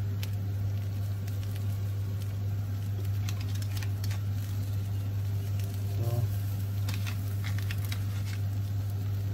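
Onions frying in a hot grill pan, giving a light sizzle with scattered small crackles over a steady low hum.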